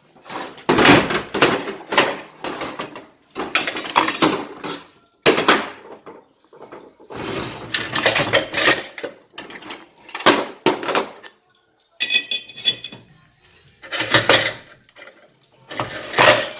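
Steel internal parts of a 700R4 automatic transmission (planetary gear sets, drums and shells) clinking and clattering against each other as they are lifted out and handled during teardown, in repeated irregular runs with short pauses.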